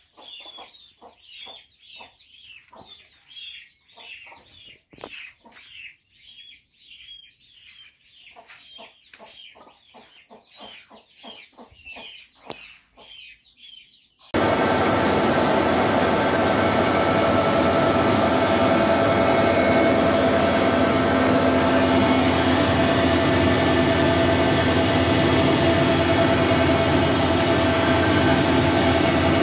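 Faint, rapidly repeated chirping calls of chickens, then about halfway a Dong Yang rice milling machine cuts in suddenly, running with a loud, even mechanical hum and a steady tone.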